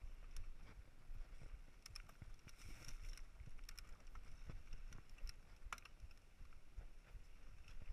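Mountain bike rolling over a dirt singletrack: a low rumble of tyres on the trail and wind on the microphone, with scattered clicks and rattles from the bike over bumps.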